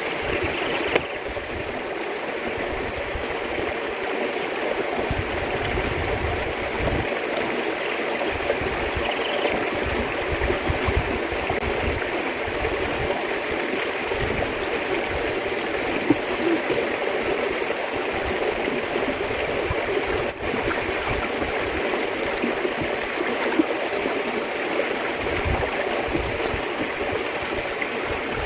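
Steady rush of running water, with gusts of wind buffeting the microphone and a few short clicks.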